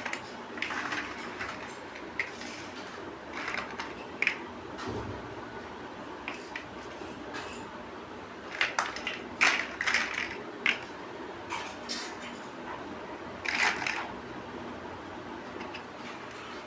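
Plastic building bricks being handled and pressed together: irregular clicks and short rattles, with a busier cluster of clicks in the middle and another near the end.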